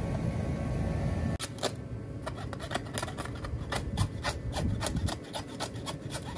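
Knife blade cutting meat from a hanging deer carcass in quick, irregular scraping strokes along the bone. Before the strokes, a steady low rumble cuts off abruptly about a second and a half in.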